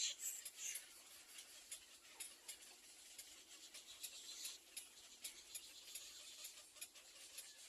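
Faint rustling and scratching with many quick high clicks, and a few brief high squeaks in the first second.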